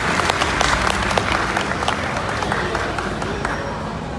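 Audience applauding, the clapping thinning out and fading over a few seconds.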